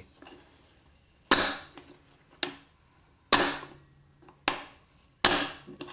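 Steel hammer of a Mastercraft drill impact-wrench adapter, turned slowly by hand, snapping down onto the output shaft each time it slips past the edge and the compressed spring drives it down: five sharp clacks about a second apart, each ringing briefly.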